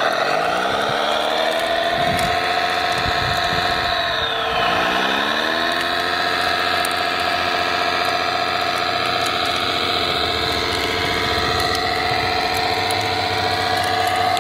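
Radio-controlled Caterpillar D9 bulldozer model running as it works through mud, a steady mechanical drive sound whose pitch drops and climbs back twice, near the start and about four seconds in, then holds steady.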